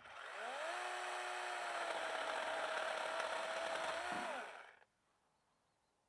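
Chainsaw motor starting up from silence, rising quickly in pitch, running steadily for about four seconds, then winding down and stopping.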